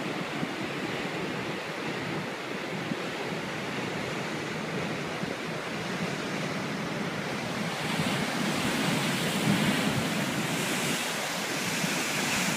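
Ocean surf breaking and churning against the shore rocks: a steady rushing wash of water that swells louder about eight seconds in as a bigger wave crashes into the rocks and throws up spray.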